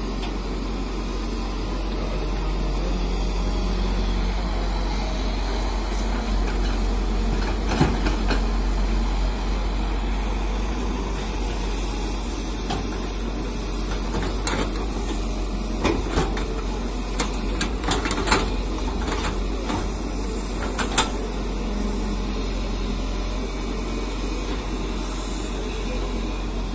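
JCB tracked excavator's diesel engine running steadily under digging work, with several sharp knocks about two-thirds of the way through.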